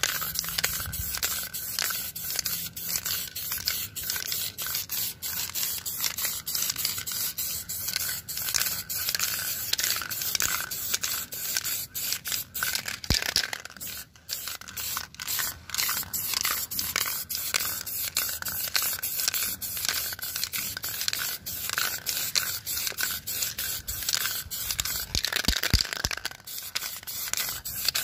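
Diton Premium aerosol clear-coat spray can hissing as it sprays in a long run of short, rapid bursts, with a brief break about fourteen seconds in. This is a second clear coat being laid over a painted surface for a glossy finish.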